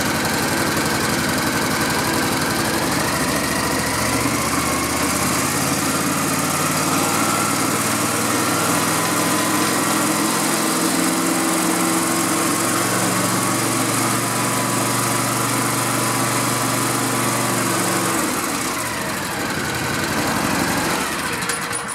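Kawasaki riding-mower engine running, throttled up partway a few seconds in, held steady at the higher speed, then brought back down near the end. The run-up is a charging-system test: at the higher engine speed the stator and voltage regulator are charging the battery.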